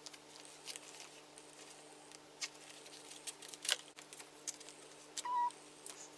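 Clear plastic binder sleeves crinkling, with scattered light taps and clicks as photocards are slid into the pockets. A brief higher tone sounds about five seconds in, over a faint steady hum.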